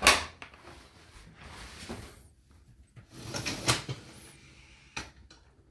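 Whirlpool dishwasher being opened and its rack pulled out: a loud clunk at the start, rattling and sliding noise, another burst of rattling, and a sharp click about five seconds in.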